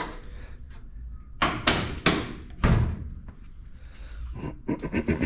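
Several dull thumps and knocks, a cluster about one and a half to three seconds in, then a quick run of lighter knocks near the end.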